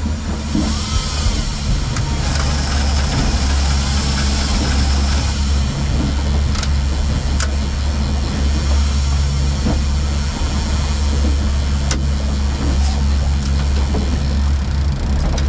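Boat engine running steadily with the boat under way, a constant low drone under the rush of wind and wake water.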